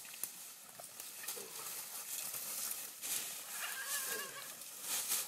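Treeing walker coonhound and raccoon scuffling in dry leaves, with a few short animal cries about a second and a half in and again around four seconds.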